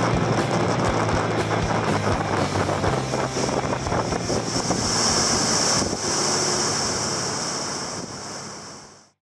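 Motorboat under way: engine hum beneath wind rushing on the microphone and the hiss of water along the hull. A high hiss grows stronger about halfway through, and the sound fades out just before the end.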